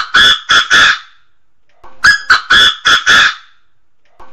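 Chinese francolin calling: loud phrases of five or six short, harsh, ringing notes. One phrase ends just after the start, a full phrase follows after a pause of about a second, and the next begins near the end.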